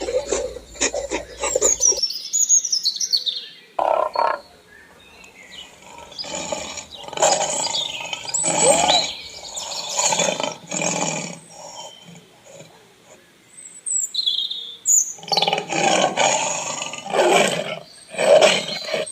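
A big cat roaring in a series of repeated calls about a second long, in two bouts, with birds chirping between them. It opens with a short rasping, grating sound.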